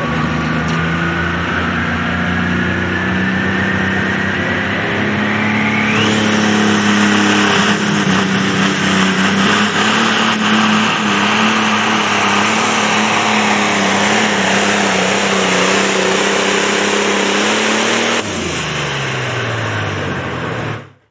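Turbocharged diesel engine of a Case IH pro stock pulling tractor at full throttle, hauling a weight-transfer sled down the track. A high whine rises steadily for about six seconds, then the engine holds high revs under heavy load until it throttles back near the end, its pitch falling away.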